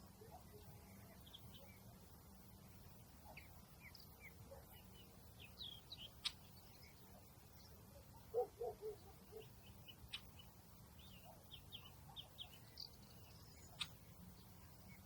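Faint bird chirps scattered throughout, over a low steady hum, with a few sharp clicks and a brief run of lower notes a little past the middle.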